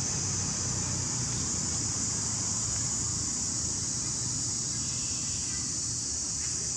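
Insects droning steadily as one unbroken high-pitched buzz, with a low rumble underneath.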